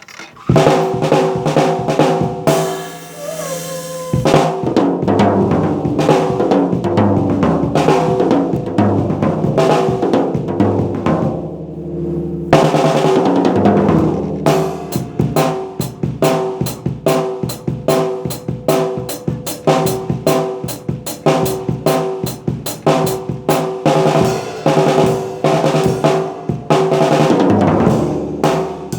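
Acoustic drum kit played alone: snare, bass drum and hi-hat in a steady groove with rolls and fills, drums ringing. A cymbal crash washes over the beat near the start and again about halfway through.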